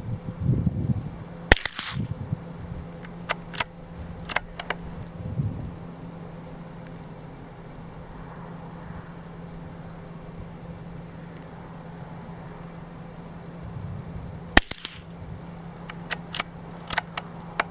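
Two sharp cracks from a CZ 455 .22 LR bolt-action rifle, about 13 seconds apart. A couple of seconds after each shot comes a short run of metallic clicks as the bolt is worked to eject the case and chamber the next round.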